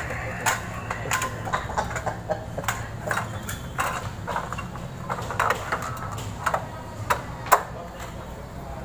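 Irregular light clicks and knocks from sheet-metal box-type fluorescent fixture housings being handled and fitted together, over a steady low hum.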